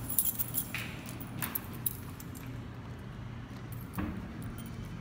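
Scattered light clicks and clinks of small hard objects being handled, over a low steady hum.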